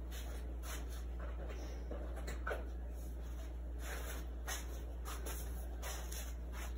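Quick rhythmic panting, about three breaths a second, over a steady low hum.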